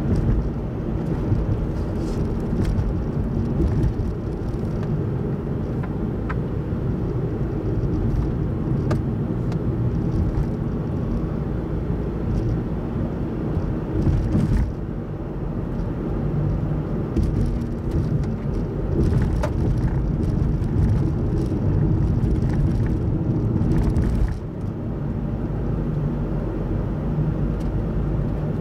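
A car's engine and tyre noise on the road, heard on board: a steady low rumble and hum with a few faint clicks. The level dips briefly about 14 seconds in and settles a little lower from about 24 seconds in.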